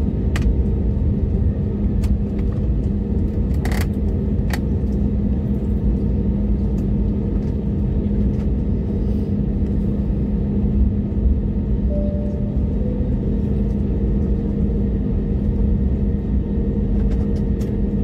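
Cabin noise of an Airbus A321neo taxiing: a steady engine hum over a low rumble, with a few sharp clicks about half a second and about four seconds in.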